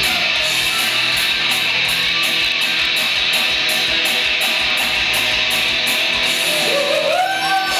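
Live rock band playing: an electric guitar strumming over bass and drums, with a cymbal-like tick about three times a second keeping the beat. Near the end a held note slides up and holds over the band.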